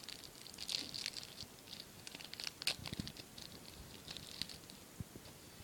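Trading cards and their plastic wrapping rustling and crinkling as they are handled, with a few small clicks.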